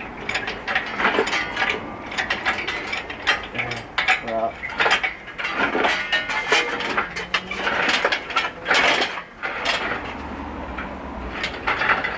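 Engine hoist being jacked up to lift an engine out of a car, with a run of irregular mechanical clicks and clanks.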